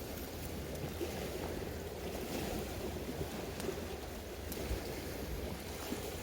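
Sea waves washing on the shore with wind buffeting the microphone: a steady, noisy rumble with a few faint clicks.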